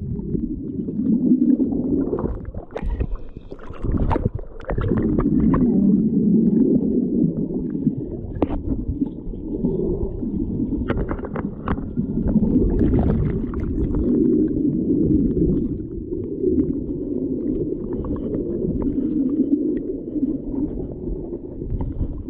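Muffled rush and gurgle of stream water close to the microphone, with irregular knocks and small splashes, most of them in the first few seconds and again about halfway through.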